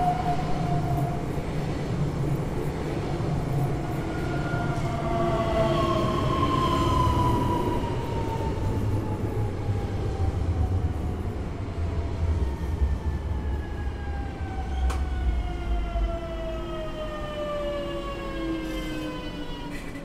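Newag Impuls electric multiple unit running past at close range: a rumble of wheels and running gear under an electric motor whine of several tones that fall slowly and steadily in pitch as the train slows. A single sharp click is heard about 15 seconds in.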